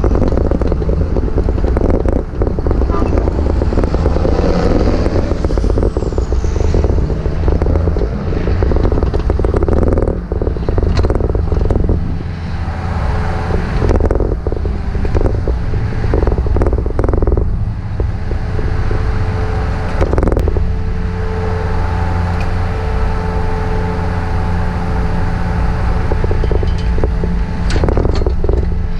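A heavy engine running steadily with a low drone, with scattered knocks and clanks on top.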